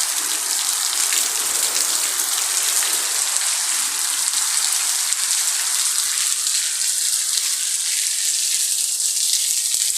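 Heavy rain falling and pattering on surfaces in a steady hiss, the downpour intensifying.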